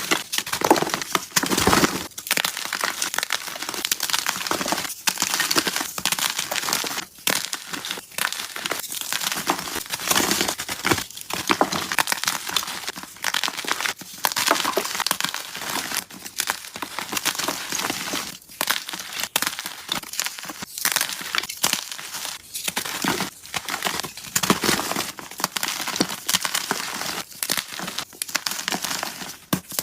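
Soft blocks of gym chalk being crushed and crumbled by hand, a continuous run of dense crunching and crackling with many small sharp snaps.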